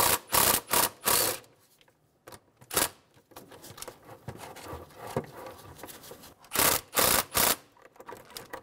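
Cordless ratchet with a 10 mm socket run in short whirring bursts as it loosens the intake hose clamp and a bolt. There are about four quick bursts in the first second or so, one more near three seconds, and three more about two-thirds of the way through.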